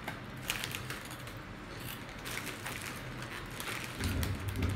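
Foil snack bag of peanut puffs crinkling and rustling in spurts of small crackles as it is handled and a hand reaches in, with a dull low bump near the end.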